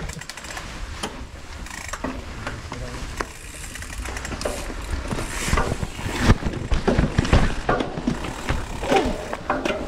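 Hardtail mountain bike ridden along a rough dirt trail: tyre noise with the chain and frame rattling and knocking over bumps, busier and louder from about halfway through.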